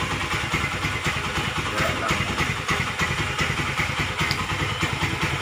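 Old Honda CB motorcycle's single-cylinder engine idling steadily, a fast, even run of exhaust pulses.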